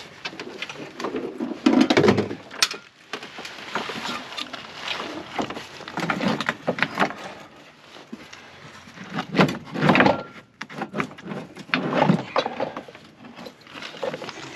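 Irregular clunks, scrapes and rubbing as a diesel heater and its parts are handled and worked on, with louder knocks about two seconds in and around ten seconds in.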